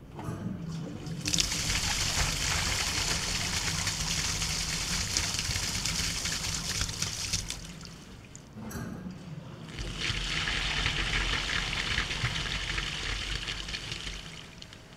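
Flushed water rushing down a foam core PVC drain pipe, picked up right at the pipe wall: a long rushing pour of about seven seconds. After a short break, a second rush of about four seconds comes through the same pipe wrapped in Reflectix insulation.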